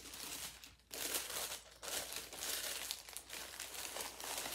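White paper wrapping crinkling and rustling as it is handled and unfolded, in uneven bursts with a brief pause about a second in.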